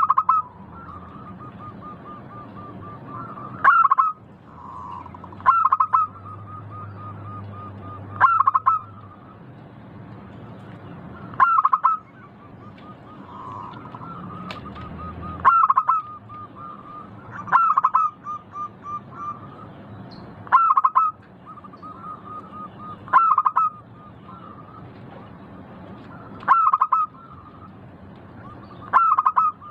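Zebra dove (perkutut) singing its cooing song: a loud coo phrase about every three seconds, with runs of soft, rapid purring notes in between.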